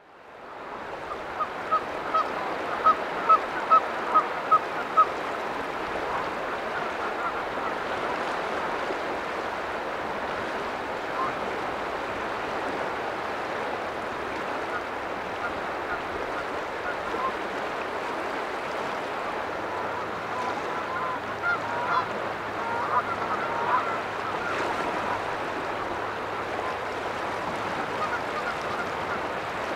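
Steady wash of seawater along a rocky intertidal shore. About a second in comes a quick series of about ten short, evenly spaced calls, and a few more calls follow around twenty-two seconds in.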